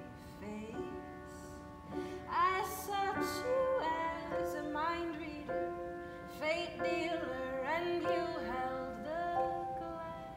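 A woman singing over upright piano accompaniment.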